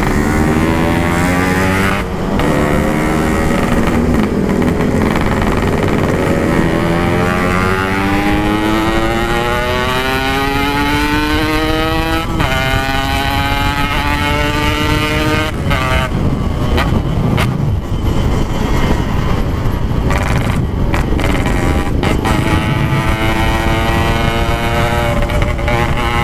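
Yamaha RX-King 135cc two-stroke single with a 'packing power' exhaust, ridden under load: the engine note climbs steadily in each gear, with several brief drops where the throttle is eased or a gear is changed.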